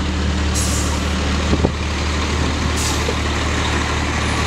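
Fire truck's diesel engine idling with a steady, loud hum, with a short knock about a second and a half in.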